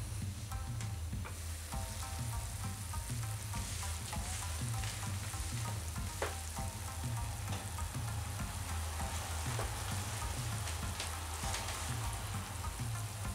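Motsunabe broth boiling hard in a pot: a steady bubbling, crackling hiss with scattered small pops, and one sharp click about six seconds in. Background music with a steady bass beat plays underneath.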